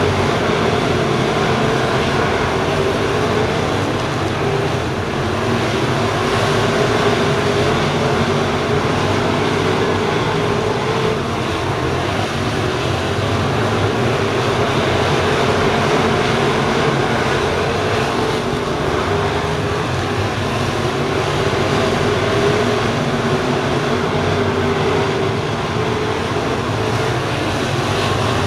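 A pack of crate late model race cars racing on a dirt oval, their crate V8 engines running hard in a steady, continuous blend of many engines.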